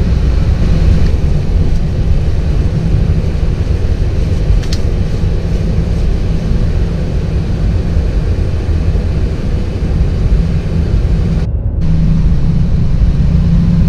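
Boeing 737-800 flight-deck noise during the takeoff roll: the CFM56 engines at takeoff thrust and the wheels on the runway, a loud steady rumble with a steady low hum.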